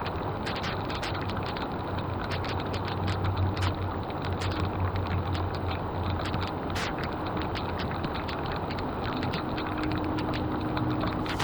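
Floodwater rushing and gurgling into a drain, with a steady low rumble and frequent sharp crackles and clicks.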